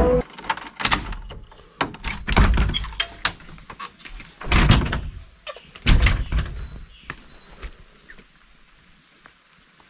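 Irregular knocks and heavier thumps from walking with a handheld camera, about a dozen in the first six seconds, then quieter.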